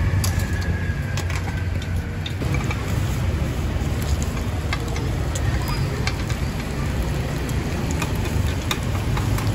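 Steady low rumble of street traffic, with scattered light clicks of metal spoons scraping and tapping a metal cake pan with round cups.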